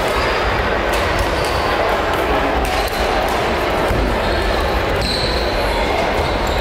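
Echoing sports-hall din of badminton play: many voices talking, rackets hitting shuttlecocks, and brief squeaks of shoes on the court floor, the clearest about five seconds in.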